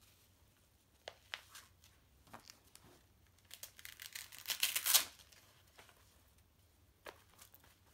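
Velcro wrist strap of a goalkeeper glove being pulled open and refastened: a crackling rip lasting about a second and a half, loudest near its end, with a few soft handling clicks before and after.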